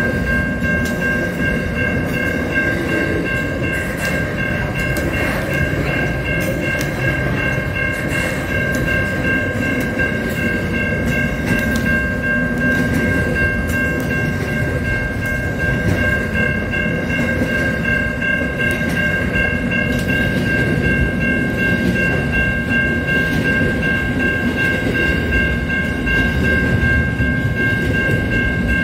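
Container freight train wagons rolling steadily past a level crossing, with scattered wheel clicks over a continuous rumble. The crossing's warning bell rings as a steady high tone over it.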